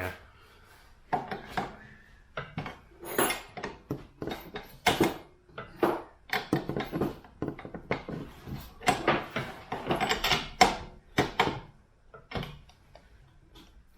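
Hand tools and metal hardware clinking and clattering irregularly against a steel bracket while a light's mounting bolt is worked tight.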